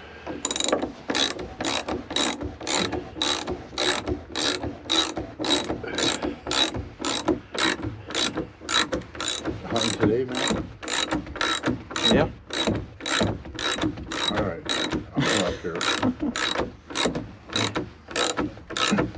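Hand ratchet wrench clicking in steady strokes, about two a second, as a bolt is cranked tight.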